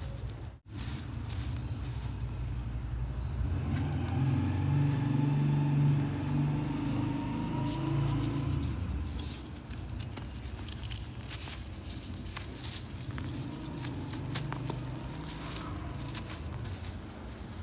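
Low engine rumble of a passing motor vehicle, swelling from about four seconds in and fading after about nine seconds, over the crackle and rustle of dry red dirt clumps being crushed and crumbled in a hand. The small crunchy clicks come through more clearly in the second half.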